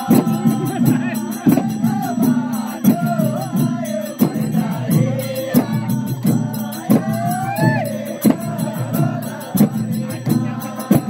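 Kauda folk song: a voice singing a wavering melody over a steady drum beat, with fast jingling ticks running alongside.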